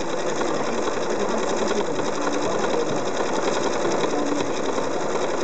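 Janome Horizon sewing machine running steadily, its needle stitching rapidly as it free-motion quilts fabric on a quilting frame.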